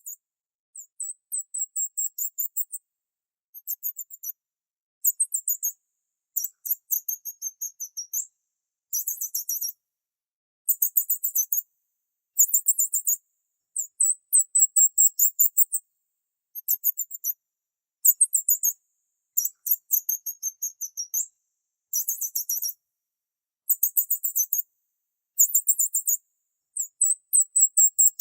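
High-pitched bird chirping: rapid runs of short chirps, each run lasting one to two seconds, with brief silent gaps between runs.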